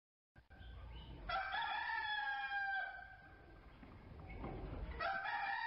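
A rooster crowing twice, each crow a long, slightly falling call of about a second and a half; the second begins about five seconds in.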